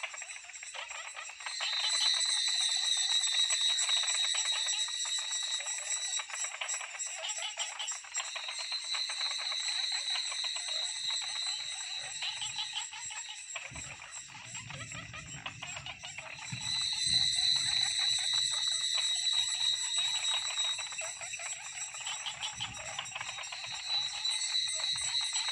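Cicadas buzzing in a high, rapidly pulsing chorus that swells loud and eases off again every six to eight seconds. A faint low rumble comes in briefly past the middle.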